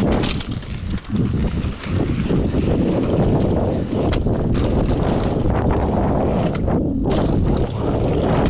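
Mountain bike riding fast down a dirt trail: wind buffets the microphone over the tyres rumbling on the ground, with frequent sharp clatters from the bike as it hits bumps.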